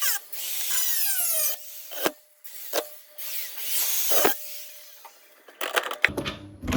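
Thin steel sheet scraping and rubbing against metal, with falling squeals in the first second and a half. About three sharp knocks follow, with shorter scrapes between them.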